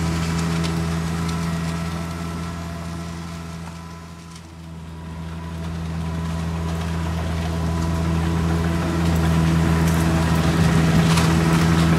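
Engine of a lawn-mowing tractor running steadily, a low even hum that fades about four seconds in and swells back up.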